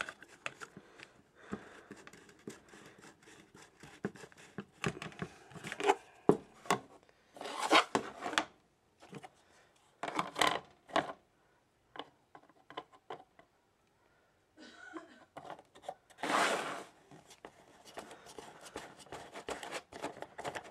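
Handling noise as a plastic CD-spindle antenna and its threaded coax connector are worked by hand: scattered clicks and rubs, with a few louder scraping bursts.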